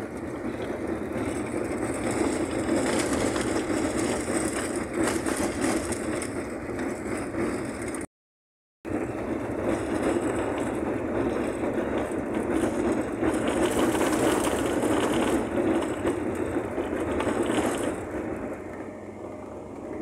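Volkswagen Kombi motorhome driving on a dirt road, heard from inside the cab: steady engine and road noise. The sound cuts out briefly about eight seconds in.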